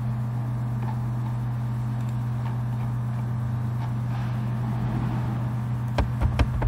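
Steady low background hum in the recording, with a few sharp clicks near the end as computer typing begins.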